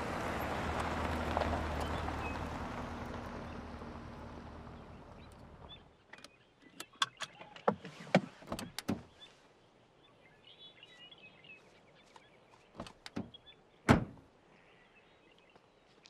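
An SUV driving past, its engine and tyre noise fading away and ending about six seconds in. Then a run of small clicks and handling sounds inside the car, and a single loud thunk about fourteen seconds in, like a car door shutting.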